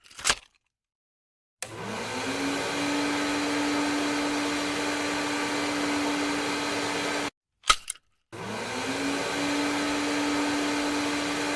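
Vacuum cleaner motor switching on and spinning up, its pitch rising over about a second to a steady hum that runs for several seconds. It cuts off abruptly, a couple of clicks follow, and the motor starts and spins up the same way again near the end.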